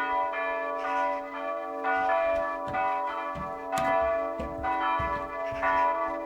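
Church bells ringing, a new strike coming about every half second to a second, each tone ringing on under the next.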